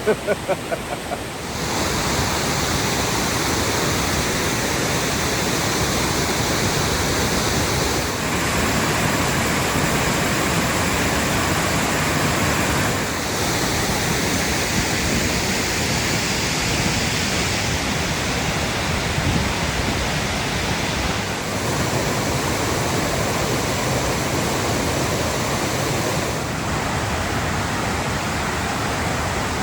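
Waterfall rushing: a steady, even noise of falling water, which steps up a little about a second and a half in.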